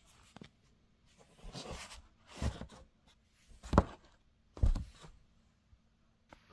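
Cardboard box being handled: a short scraping rustle, then three dull thumps a second or so apart.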